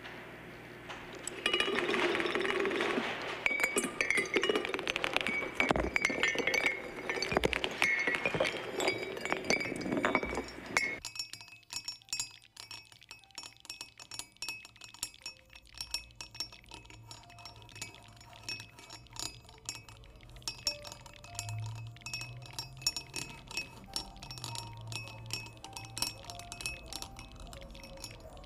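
Clinking, glassy tinkling sounds, dense and loud for the first ten seconds or so. About eleven seconds in they cut off abruptly, leaving sparse clicks and faint short tones.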